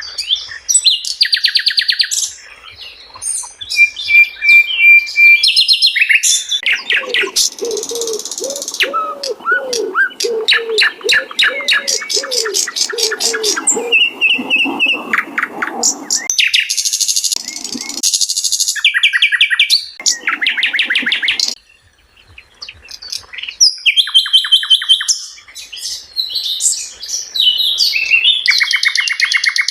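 Sikatan londo (a small flycatcher) singing a fast, varied song of trills, whistles and chattering phrases, with a lower warbling running underneath for several seconds in the middle and a brief pause about three quarters of the way through.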